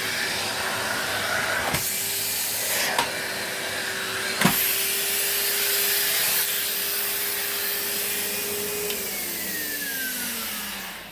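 Numatic Hetty tub vacuum cleaner running steadily while picking up bits of paper from a rug, with a few sharp clicks. About nine seconds in it is switched off and its motor whine falls away as it winds down.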